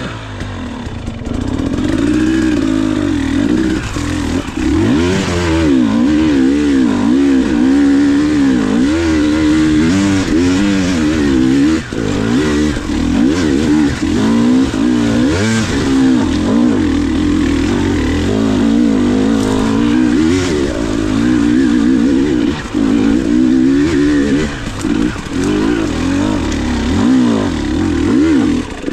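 KTM 300 XC two-stroke dirt bike engine being ridden, revving up and down constantly, its pitch rising and falling every second or two as the throttle opens and closes.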